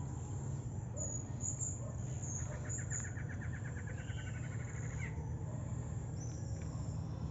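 Wild birds singing: a few short high chirps, then a fast, even trill lasting about two and a half seconds, with more high notes near the end, over a steady low rumble.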